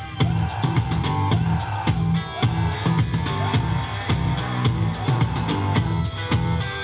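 Upbeat pop song playing loudly, with a steady drum beat and guitar.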